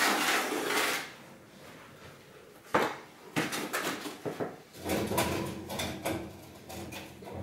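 A trowel being handled in a plastic builder's bucket, with rustling at the start, a sharp knock about three seconds in, a run of clicks and knocks, then scraping and rubbing against the bucket.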